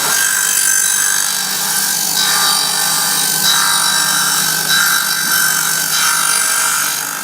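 End milling machine running its cutter into an aluminium profile: a high-pitched cutting whine and hiss over a steady motor hum, easing off near the end.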